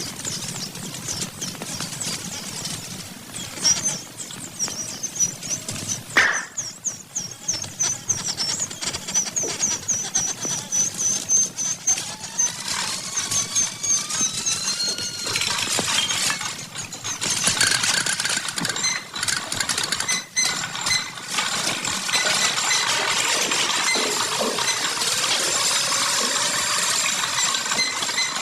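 A run of rapid, high, chirping sound effects. About halfway through come several sweeping whistle glides, and then a dense, steady mechanical clatter to the end.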